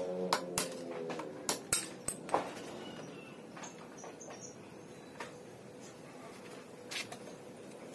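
Sharp metallic clinks and taps of hand tools against a motorcycle's steering head as it is dismantled to replace the steering head bearing: about six in the first two and a half seconds, then one more near the end.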